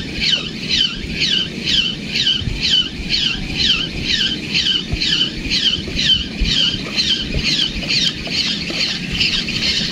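Spinning fishing reel being cranked, its mechanism giving a high squeak that falls in pitch on every turn of the handle, about three squeaks a second, fading out near the end.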